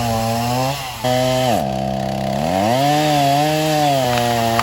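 Two-stroke chainsaw running at high throttle while felling a cedar tree. The engine dips briefly about a second in, then its pitch drops for about a second in the middle and climbs back up.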